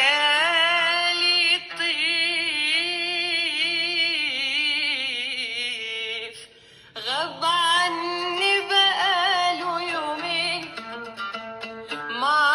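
Xiaomi Redmi Note 9S loudspeaker playing an Arabic song: a woman singing long, wavering, ornamented lines. The singing breaks off briefly about six and a half seconds in and comes back on a rising note.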